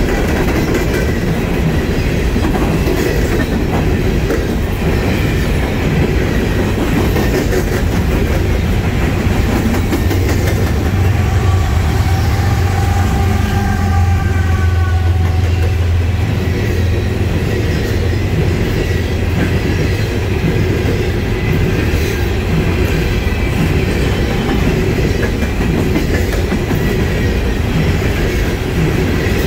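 Norfolk Southern coal train's cars rolling past with a steady rumble of wheels on rail and clickety-clack over the joints. About a third of the way in, a lower hum and a faint ringing tone swell for several seconds and fade.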